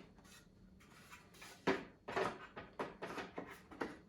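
Wooden bench parts being handled and turned over: a run of short knocks and scrapes of wood on wood, starting about a second and a half in.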